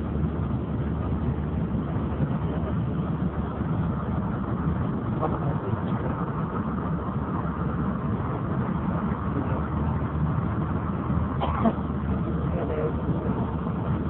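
Steady rumble of vehicle engines in slow traffic on a flooded road.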